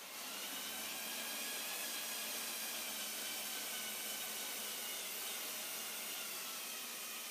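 Small Lego Technic electric motors and plastic gearing whirring steadily as the remote-controlled model dumper truck drives, with a thin high whine over the hum. The sound starts suddenly as the truck sets off.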